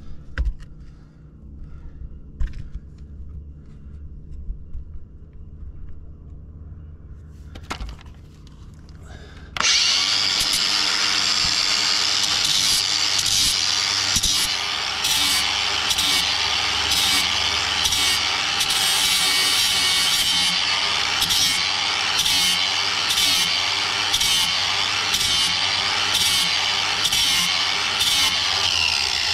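Corded angle grinder with a flap disc, switched on about a third of the way in, grinding the edge of a steel Razorback slasher-mower blade to sharpen it. Its sound dips briefly in a regular rhythm, about three times every two seconds. Before it starts there are only a few handling knocks.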